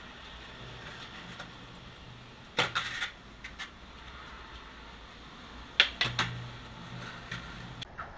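Skateboard clatter: two short clusters of sharp clacks and knocks, about three seconds apart, over a faint low hum.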